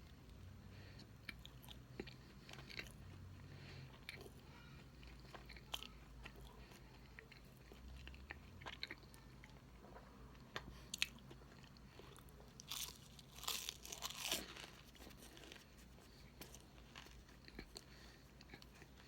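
A person eating cake close to the microphone: faint chewing and small clicking mouth sounds, with a louder crunchy stretch about two-thirds of the way in.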